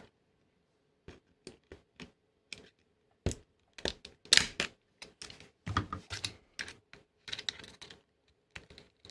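Small plastic clicks, snaps and scrapes as a small screwdriver pries apart the glued two-half plastic housing of a One Connect cable's connector. The clicks come irregularly from about a second in, with the sharpest snaps near the middle.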